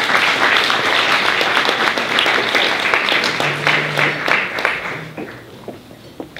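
Audience applauding: dense clapping that fades away about five seconds in, leaving a few scattered clicks.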